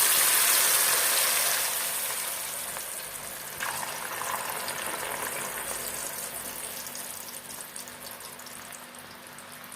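Frozen, blanched potato strips sizzling hard in hot oil for French fries. The sizzle is loudest just after the potatoes go in and slowly dies down, with a fresh surge about three and a half seconds in.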